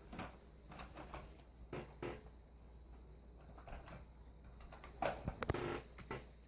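Light clicks and knocks of a hard plastic baby walker toy being handled and its buttons pressed, scattered through, with a cluster of louder knocks about five seconds in.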